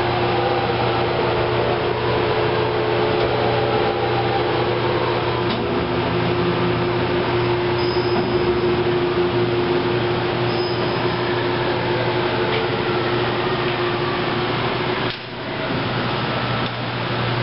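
Steady hum of running machinery in a machine shop, with a constant low drone and a steady mid-pitched tone over a hiss of motor and fan noise. The sound dips briefly about fifteen seconds in.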